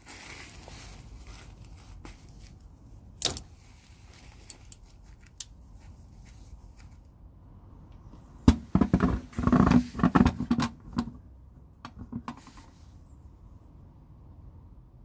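Pliers on a spring hose clip, with a sharp click about three seconds in, then a large plastic drain tub knocking and scraping for a couple of seconds as it is set down and pushed into place under the radiator hose.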